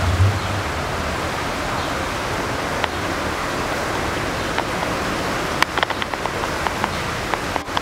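Heavy thunderstorm rain and storm water pouring down a flooded ramp, a steady hiss. There is a brief low rumble at the start, and a run of sharp taps in the last couple of seconds.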